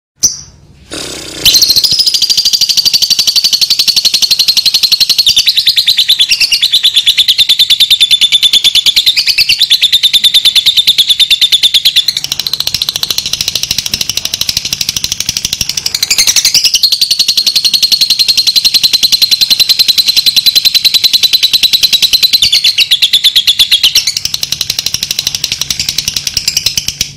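Lovebird "ngekek": a very rapid, high-pitched chattering trill that starts about a second and a half in and is held for over twenty seconds without a break.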